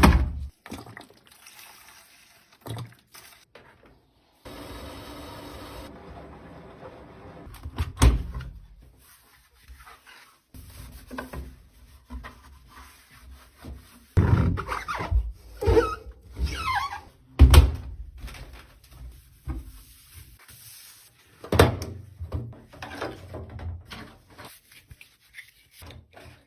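Knocks, thunks and clunks from a washing machine being handled and cleaned, with a steady hiss for about three and a half seconds near the start and a brief wavering squeak around the middle.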